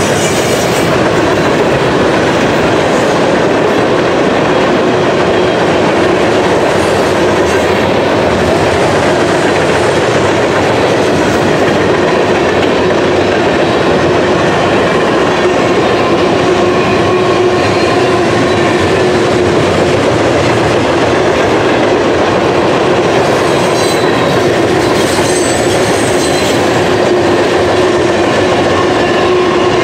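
Freight train cars rolling past: a loud, steady rumble and clatter of steel wheels over the rail joints. A faint high squeal from the wheels comes and goes late on.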